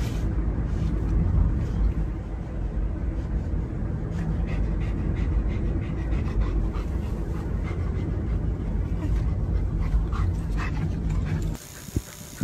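A golden retriever panting inside a car, over the steady low rumble of the car. About a second and a half before the end, the rumble cuts off to a much quieter room with a faint hiss.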